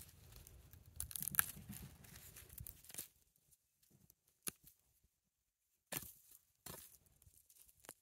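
Hands digging through loose garden soil and pulling sweet potatoes free of their roots: faint rustling and scraping of dirt with a sharp snap a bit over a second in, then a quieter stretch with a few short crackles and rustles.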